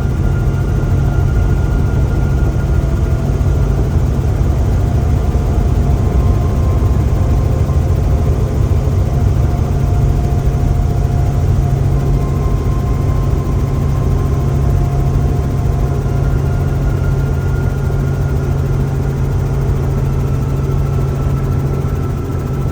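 Small tour helicopter's engine and rotor running with a loud, steady low hum as it comes in to land.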